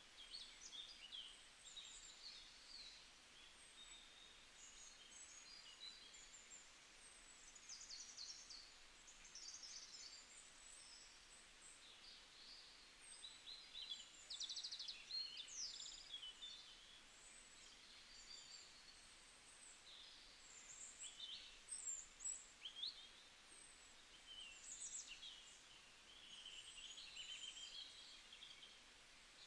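Faint birdsong: many short chirps and quick twittering notes from several small birds, overlapping and coming in clusters over a steady low hiss.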